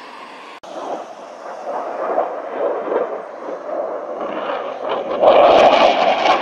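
Fighter jet's engine noise building as it approaches overhead, turning much louder and crackling about five seconds in. A short break in the sound just after the start.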